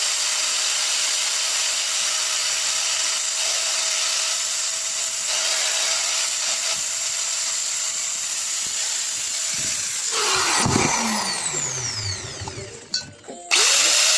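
DEWALT D28135 angle grinder running steadily with a high whine after its won't-start repair. About ten seconds in it is switched off and the whine falls as the motor spins down, then it is switched on again near the end and runs back up.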